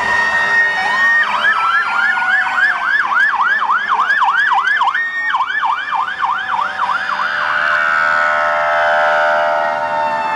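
Fire truck sirens. A steady tone switches about a second in to a fast yelp rising and falling about three to four times a second, broken by a brief steady tone midway. Near the end a slow, falling wail takes over.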